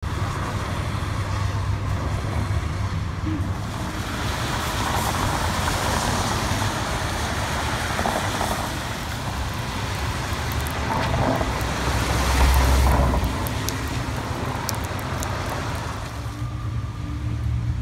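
Road traffic passing on a rain-wet city street, a continuous hiss of tyres on wet pavement with a deeper rumble as a heavier vehicle goes by about twelve seconds in.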